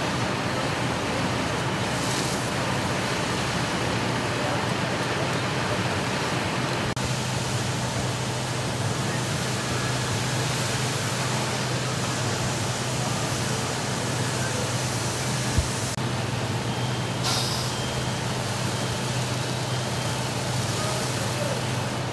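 Steady rushing hiss of fire-hose water spraying at a fire, over a running fire engine whose low steady hum comes in about seven seconds in, with one brief thump about two thirds of the way through.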